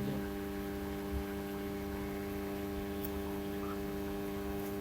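Steady electrical mains hum, with a couple of faint ticks about three seconds in and near the end.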